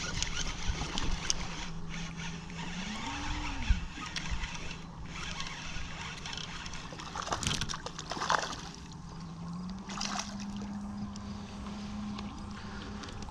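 Outboard motor of a passing motorboat droning steadily, its pitch swinging up and back down once and later rising a little. A few splashes of water in the middle.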